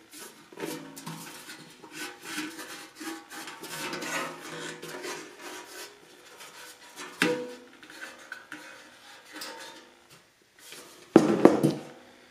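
Empty steel ammo can handled on a workbench: sheet metal rattling and clanking with a ringing tone, a sharp knock about seven seconds in, and a louder clang near the end as it is set down.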